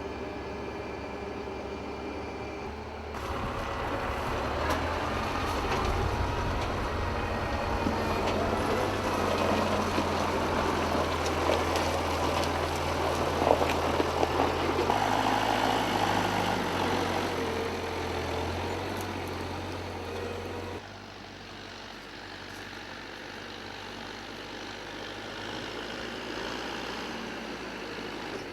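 Tractor engine running to drive the hydraulics of a Palms forestry crane, its note stepping up and down as the load changes, with a few sharp knocks around the middle.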